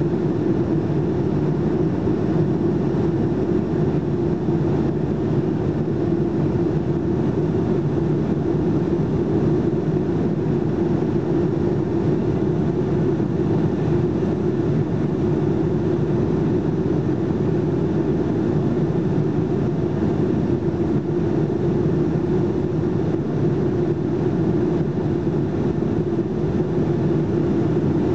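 Steady cabin roar of a Boeing 757-200 in flight, its engines and the rushing airflow heard from inside the passenger cabin, with a low, even hum running under it.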